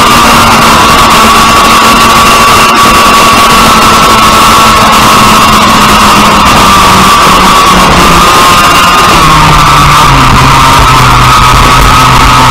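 IAME X30 single-cylinder two-stroke kart engine howling near 14,000 rpm on a straight, then its pitch drops in steps over the second half to about 7,600 rpm as the kart slows for a corner. The recording is loud and heavily overdriven.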